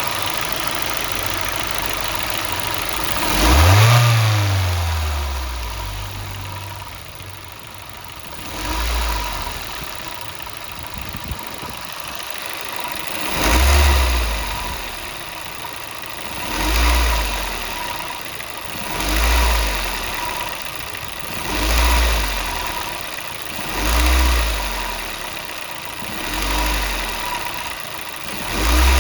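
Ford Mondeo Mk3's Duratec HE four-cylinder petrol engine idling and being revved. There is one longer rev about four seconds in, then a string of short blips about every two and a half seconds, each falling back to idle. As the revs drop, the owner hears an odd noise whose cause is unknown.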